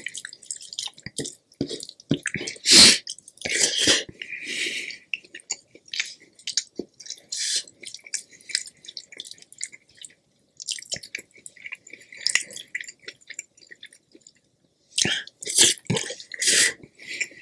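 Close-miked eating sounds: irregular chewing and wet mouth smacks, with one loud burst about three seconds in and a short lull near the end.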